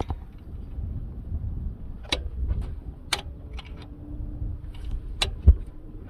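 Three sharp metallic clicks and then a louder knock over a low, rough rumble, from handling metal parts while fitting a mechanical fuel pump to an engine block.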